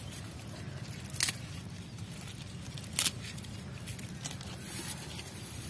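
Bangles on a wrist clinking twice, about a second in and again about three seconds in, as the hand picks among potted greens, over a low steady rumble.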